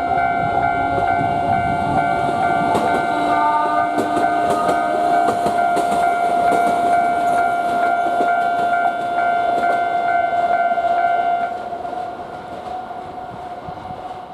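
A train running across a level crossing, its wheels clacking irregularly over the rail joints, while the crossing's warning bell rings steadily. The train noise eases off near the end, leaving the bell ringing more faintly.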